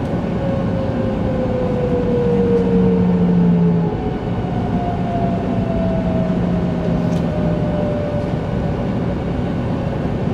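The Hitachi GTO-thyristor VVVF inverter and traction motors of an E2 series Shinkansen whine under braking as the train slows into a station, heard inside the car over steady running noise. The whine falls in pitch, steps back up about halfway through, and falls again.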